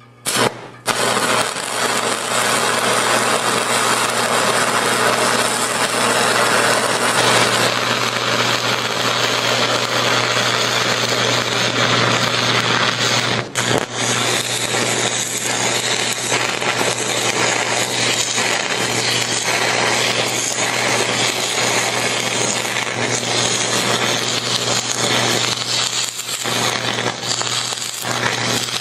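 Stick-welding arc from a 1/8 inch 6011 electrode at 225 A, DC electrode positive, crackling and hissing steadily as it melts and gouges through 3/8 inch steel plate in an arc-cutting attempt. The arc strikes just after the start and breaks for a moment about halfway through.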